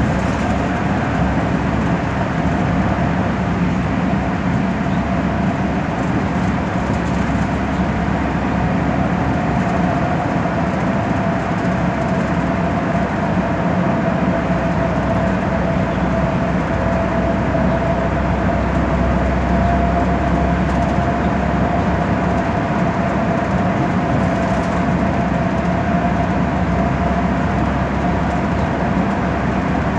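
Steady interior noise of an express bus under way: low engine and road rumble with a constant high whine.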